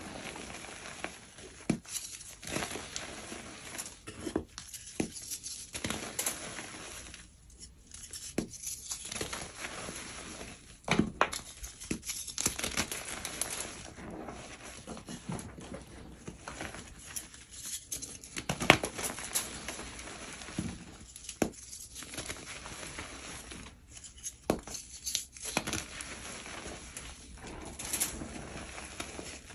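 Hands squeezing and crumbling lumps of powdery gym chalk in a tray of loose chalk: continuous soft crunching and rustling of powder, broken by irregular sharp cracks as lumps break apart, the loudest about two-thirds of the way through.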